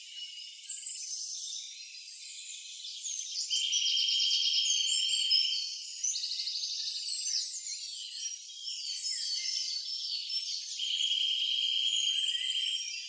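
Birds chirping and trilling, with two longer buzzing trills, one in the middle and one near the end.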